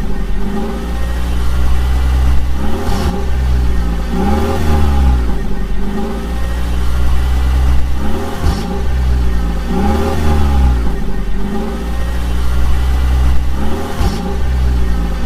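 Heavy vehicle engine revving up and down again and again, its pitch rising and falling in repeated swells over a steady deep rumble.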